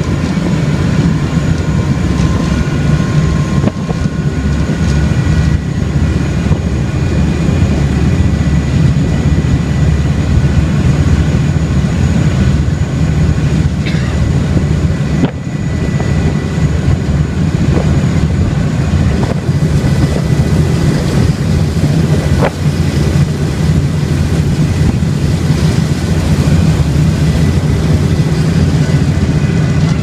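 Thames Clipper river-bus catamaran under way: the steady low drone of its engines, with a faint steady high whine above it.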